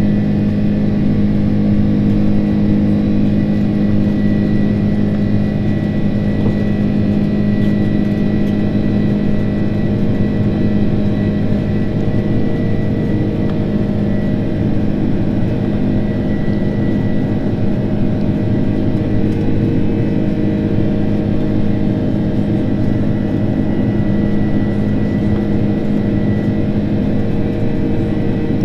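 Boeing 767-300ER's turbofan engines in the climb after takeoff, heard from a window seat inside the cabin: a loud, steady drone with a strong low hum and a thin, high, even whine above it.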